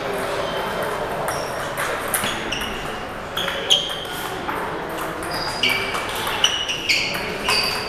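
Table tennis ball hit back and forth by rackets and bouncing on the table in a rally: a quick, irregular series of sharp pings, each ringing briefly.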